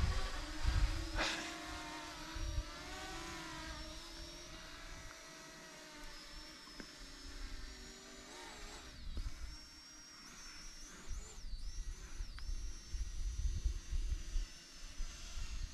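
Small electric propeller motors of a radio-controlled eagle model and a Parrot Anafi drone whining overhead, several steady tones that dip and rise in pitch as the aircraft change speed. Wind buffets the microphone with low rumbles near the start and end.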